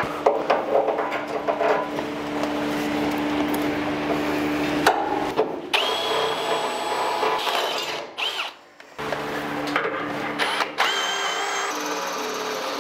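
AEG cordless drill running in bursts against a steel mounting bracket on an air compressor tank. The motor whine holds a steady pitch for the first few seconds, then a high squeal comes twice in the second half.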